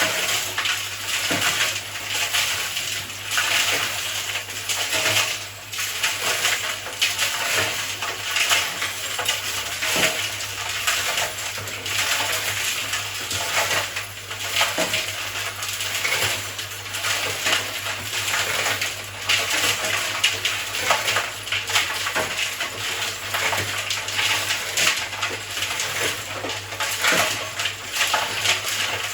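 Cement mixer drum tumbling a load of oiled nuts and bolts: a continuous, noisy metallic clattering and rattling over the steady low hum of the mixer's motor, cleaning the rust off the hardware.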